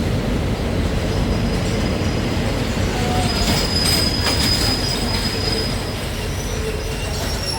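Train wheels running on the rails with a steady heavy rumble. A high, steady wheel squeal rises about three seconds in and lasts a couple of seconds, with a few clicks around it.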